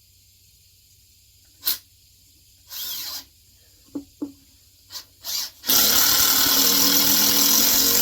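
Power drill driving a ceramic deck screw into a 2x4: a few short knocks and a brief burst of the drill, then the drill runs steadily and loudly for the last two seconds or so.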